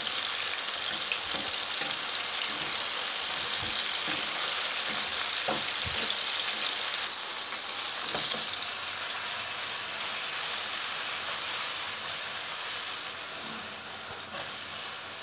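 White button mushrooms sizzling steadily in butter and olive oil in a frying pan over high heat, with a few light knocks from a wooden spatula stirring them.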